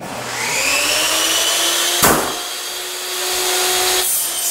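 Electric power tool motor switched on, spinning up to a steady whine, then winding down near the end as it coasts to a stop; a sharp knock about two seconds in.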